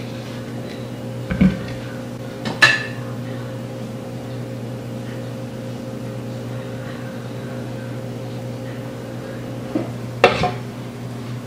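A spatula knocking against a mixing bowl while thick marshmallow-frosting cream is scraped out onto a cake. There is a dull knock, then a sharp ringing clink about two and a half seconds in, and another pair of knocks with a sharp clink near the end, over a steady low hum.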